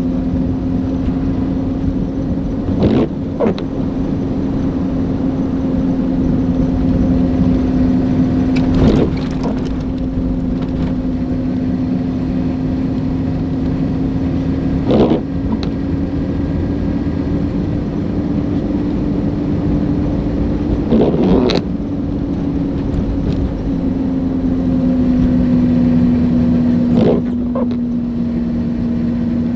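Car engine and road noise heard from inside a moving vehicle: a steady drone with rumble underneath. A short knock or clunk comes about every six seconds.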